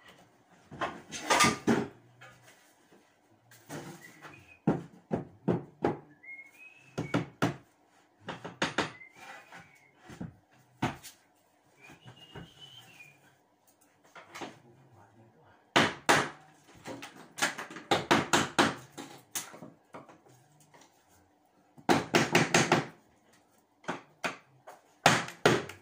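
Hand tool worked against the ceiling: bursts of rapid scraping and knocking strokes separated by pauses, with a few brief high rising-and-falling squeaks in between.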